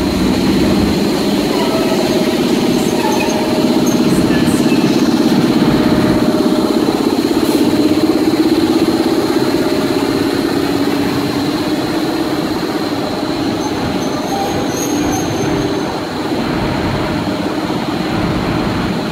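EP07 electric locomotive running close by: a steady loud hum with a thin high whine over it. The hum swells about four seconds in and eases off toward the end.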